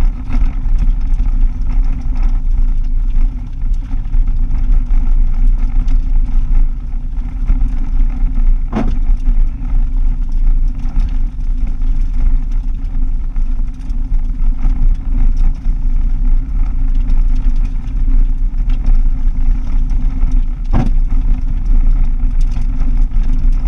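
A car driving on a dirt road, heard from inside the cabin: a steady low rumble of engine and tyres on gravel. Two sharp knocks come through, about nine seconds in and again near the end.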